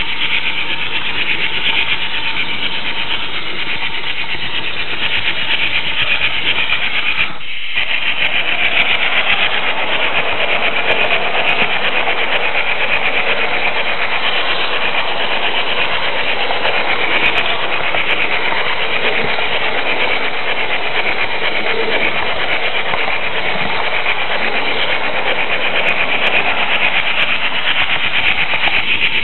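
Märklin H0 model train running along the track, a steady rubbing and rattling rolling noise heard close up from on board a flatbed wagon. It drops out for a split second about seven seconds in.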